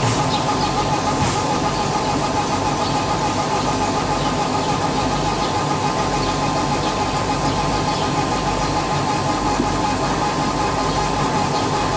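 Bodor 1309XU 150 W CO2 laser cutting and engraving machine running as it engraves a glass bottle turning on its rotary chuck. It makes a steady mechanical hum with a constant whine.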